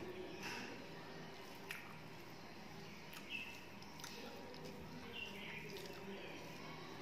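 Faint wet chewing and mouth sounds while eating rice and curry by hand, with a few soft clicks as fingers mix the food on a steel plate.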